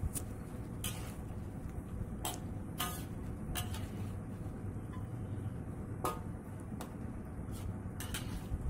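Metal spatula stirring chicken stew in a steel wok, knocking and scraping against the pan in about eight irregular clinks, over a steady low hum.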